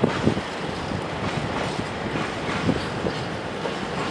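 Freight train of rail tank wagons rolling past: a steady rumble of wheels on the rails, broken by irregular knocks as the wheels run over the track.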